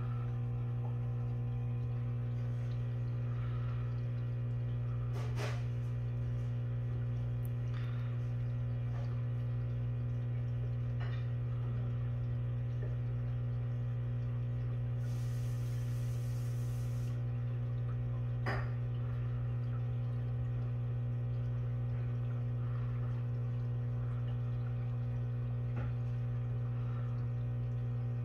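Aquarium pump humming steadily. There are a couple of faint clicks and a short hiss about halfway through.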